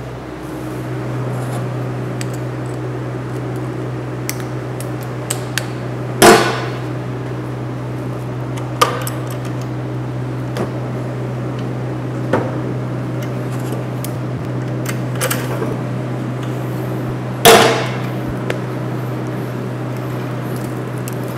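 Steady hum from a Miller MIG welding machine, with metal clanks and clicks as wire is handled at its feed rolls. Two loud ringing clanks come about six seconds in and again at about seventeen seconds, with a few lighter clicks between.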